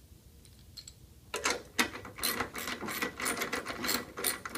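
A wrench turning the bolt out of a pulley wheel: after about a second and a half of quiet, a quick, uneven run of clicks.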